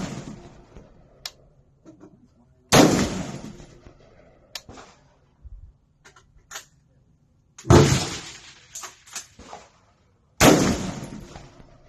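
Smith & Wesson M&P15 Sport II AR-15 rifle firing slow, deliberate single shots: three sharp reports, about three seconds in, near eight seconds and near the end. Each fades away over about a second, and the tail of a shot fired just before is heard at the start.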